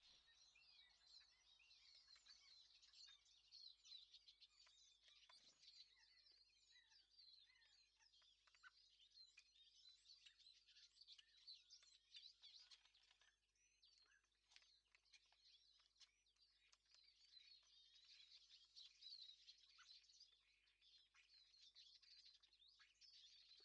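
Faint birdsong from several songbirds: dense, overlapping chirps and short song phrases that run on without a break.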